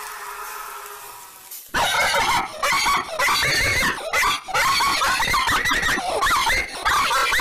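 A held tone fades out. Then, about two seconds in, a high-pitched cartoon voice squeals and shrieks loudly without words, again and again to the end.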